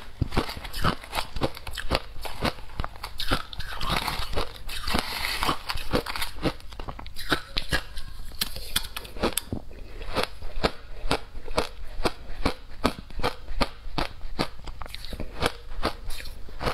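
Shaved ice and frozen passion fruit being bitten and chewed close to the microphone: a dense run of sharp, crackling crunches, several each second.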